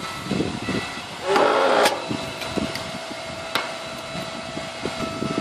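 Yardworks log splitter running with a steady hum while a split log is worked off the beam. A short burst of wood cracking and scraping comes about a second and a half in, and a sharp knock a little after the middle as a steel log hook is struck into the wood.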